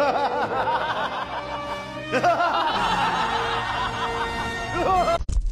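High-pitched snickering laughter in quick runs of short 'ha' sounds, in two long stretches and a brief one near the end, over background music.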